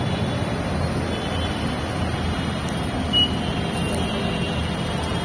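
Steady low rumble of a station concourse, with one short high electronic beep about three seconds in from an automatic fare gate accepting a scanned ticket.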